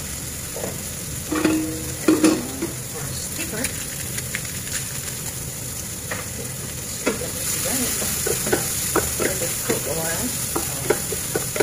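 Chopped red long beans and onions sizzling steadily in a nonstick frying pan, with a few knocks about two seconds in. From about seven seconds in, a wooden spatula stirs and scrapes the pan in quick clatters, and the sizzle grows a little louder.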